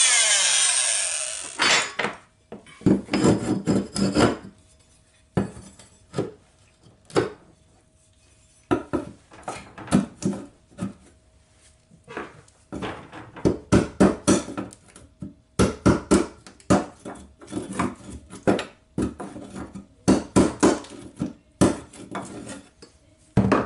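A small handheld power tool's motor winding down with a falling pitch in the first second or so. This is followed by irregular clusters of sharp hammer blows on a steel flat pry bar being driven into wooden flooring.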